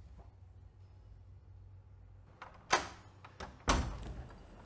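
A door being handled: a light click, then two sharp knocks about a second apart, the second louder and deeper.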